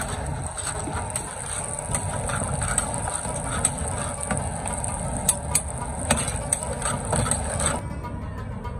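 Meat and tomatoes frying in a steel karahi wok, with a metal ladle clinking and scraping against the pan over a steady rushing hiss. The sound cuts off abruptly near the end.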